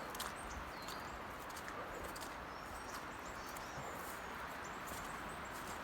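Faint small-bird chirps, short high notes every second or two, over a steady outdoor hiss, with a few soft footsteps on the track.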